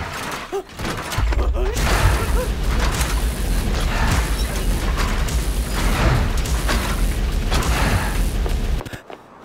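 Film sound effects for a scrap-metal monster: dense mechanical noise over a deep rumble, cutting off suddenly near the end.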